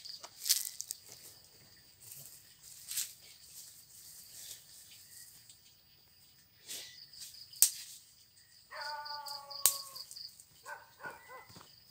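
Night-time crickets chirping steadily in a high pulsing trill, with a few sharp clicks and knocks scattered through. About nine seconds in there is a brief pitched call, and a second short wavering one near the end.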